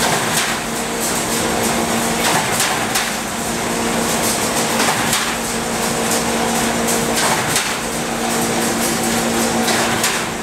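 Steel wire-mesh welding machine running with a steady hum, broken by irregular sharp metallic clanks from the machine and the steel wire mesh being handled on it.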